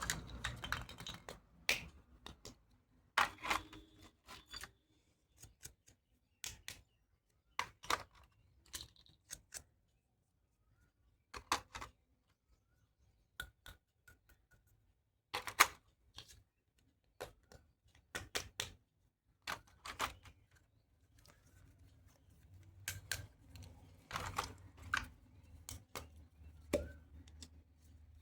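Toy doctor-kit pieces being handled: irregular sharp clicks and taps, some in quick clusters, with short quiet gaps between.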